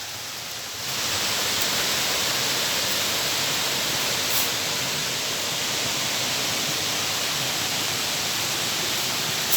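Waterfall water rushing in a steady, even roar that grows louder about a second in.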